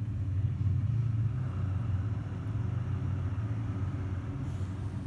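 Car engine idling steadily, a low, even rumble.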